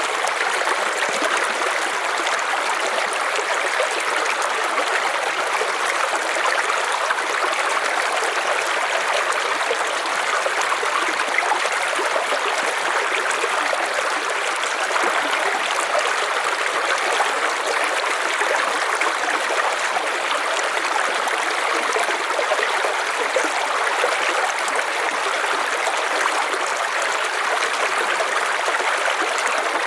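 River water flowing steadily over stones: an even, unbroken rush of a running stream.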